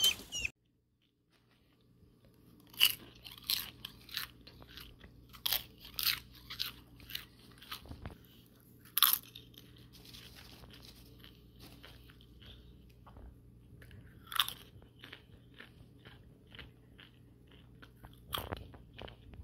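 A person biting and chewing crunchy food close to the microphone: irregular sharp crunches with smaller wet mouth clicks in between. It opens with a brief moment of chickens clucking before a cut.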